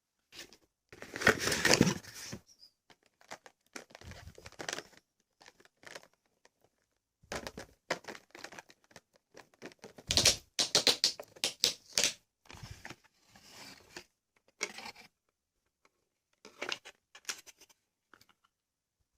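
Product packaging being handled and opened: irregular rustling, crinkling and tearing in bursts with short pauses, loudest about a second in and again about ten seconds in.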